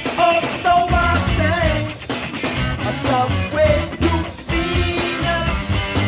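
Funk-rock band playing an instrumental passage: bass, drums and electric guitar, with a pitch-bending melody line on top.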